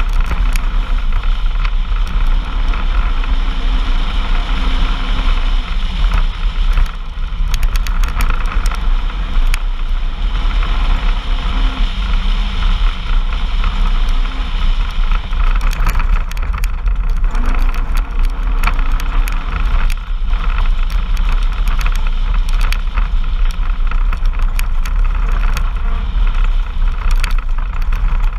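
Off-road vehicle on the move: a steady loud running sound with a heavy low rumble, a faint engine note that rises and falls slightly a few times, and frequent short rattles and knocks.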